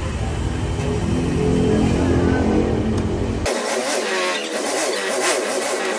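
Yamaha NMAX 155 scooter's single-cylinder engine running, its pitch rising and falling as the throttle grip is twisted. About halfway through it cuts off abruptly and background music follows.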